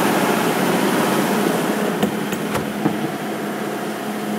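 60 kW diesel generator running steadily: a constant low hum under a broad rushing noise, with a few light clicks a little after two seconds in.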